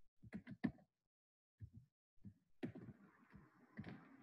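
Faint keystrokes on a computer keyboard: a quick run of about four clicks in the first second, then a few scattered clicks.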